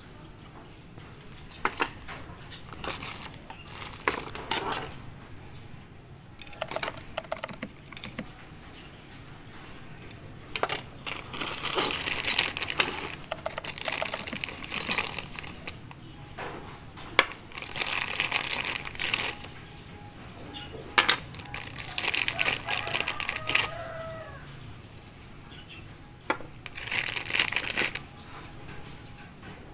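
Small clear plastic zip-lock bags crinkling as they are handled and opened, in several bursts, with scattered light clicks of the small mount parts inside.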